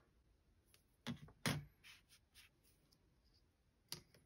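Quiet handling on a cutting mat: a few sharp clicks and taps about a second in as a scalpel and metal ruler are set down, faint paper handling, and one more click near the end.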